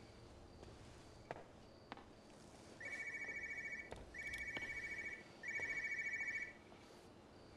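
Electronic telephone ringer trilling: three rings about a second long each, close together, starting about three seconds in. A few faint clicks come before it.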